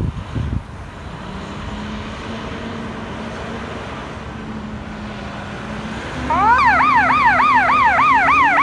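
Fire department air/light support truck approaching, its engine a steady drone. About six seconds in, its electronic siren starts in a fast yelp, the pitch sweeping up and down several times a second.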